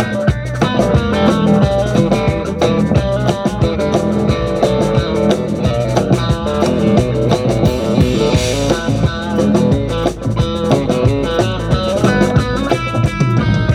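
Live rock band playing an instrumental jam: guitar leading over bass and drum kit, with no singing.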